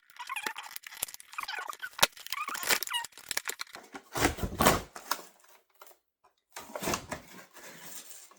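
A doll's cardboard-and-plastic box being opened by hand: scattered clicks and squeaks of plastic packaging, then two louder rips about four and seven seconds in.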